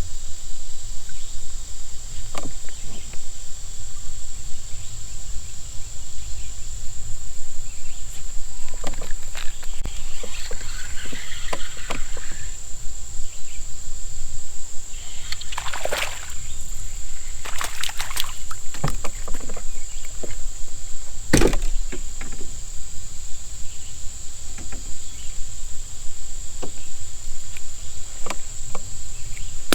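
Water sloshing around a small boat drifting on a river, with a few sharp knocks against the hull and a steady high-pitched insect drone.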